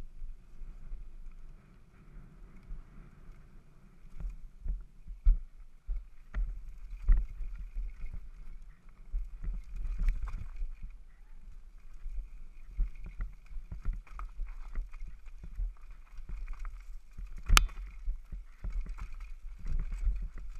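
Devinci Wilson downhill mountain bike ridden fast down a rough dirt trail: a steady low rumble from the tyres and wind on the microphone, with frequent knocks and rattles as the bike hits bumps and roots, one sharp clack near the end.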